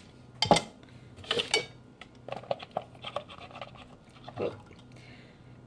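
Minced mushrooms being tipped and scraped by hand out of a plastic food processor bowl into a frying pan: scattered light clicks and taps, with one sharp knock about half a second in, over a steady low hum.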